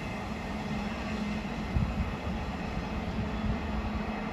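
Freight train of covered wagons rolling away along the track: a steady rumble of wheels on rail with a low hum.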